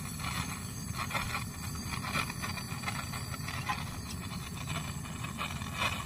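Brazing torch flame burning steadily on a copper refrigeration pipe joint, a steady low rushing noise with a few faint light clicks.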